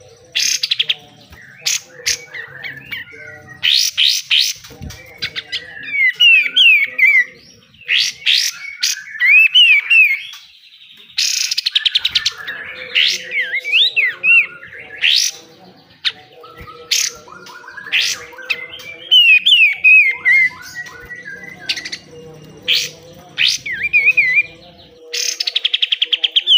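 Kapas tembak (katem) songbird singing vigorously: quick whistled warbling phrases broken every couple of seconds by loud, rapid-fire harsh rattling bursts, the 'besetan' that bird keepers prize.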